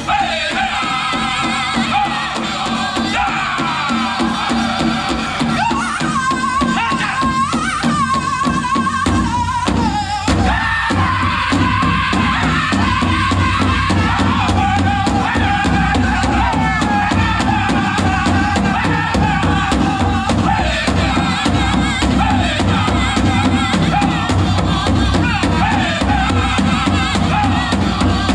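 Powwow drum group singing a chicken dance song: voices singing together over a steady, even drumbeat on a big drum. The drumming grows heavier about ten seconds in.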